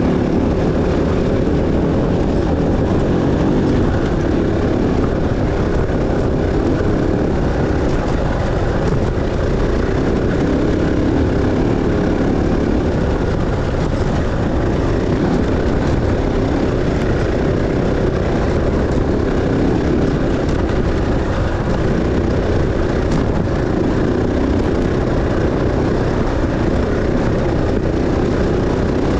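Dirt bike engine running while the bike is ridden, its level holding steady.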